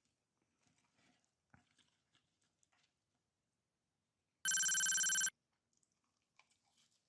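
Faint chewing and wrapper rustling, then, about four and a half seconds in, a loud electronic ringing tone lasting under a second: an added sound effect, like a phone ringtone.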